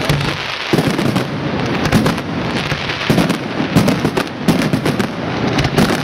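Aerial fireworks shells bursting in quick succession: several bangs a second, overlapping, over a constant crackle.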